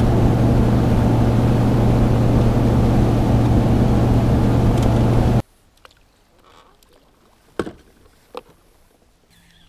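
A bass boat's outboard motor running at speed, a loud steady drone over a rush of wind and water noise. It cuts off abruptly about five seconds in, leaving quiet with two sharp knocks.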